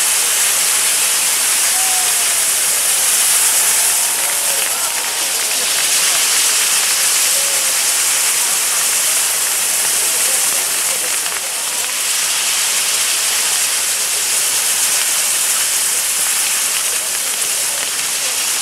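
Maltese ground fireworks (nar tal-art) burning: the spinning firework wheels' spark-jets give a loud, steady rushing hiss.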